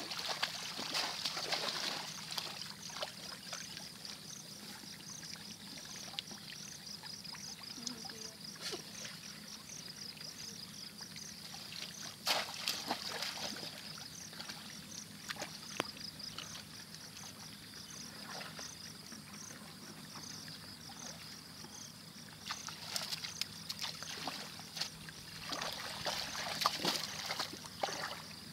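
Shallow floodwater sloshing and splashing as people wade through it and dip woven bamboo fish baskets, with sharper splashes about twelve seconds in and again near the end. A steady high-pitched pulsing trill runs underneath.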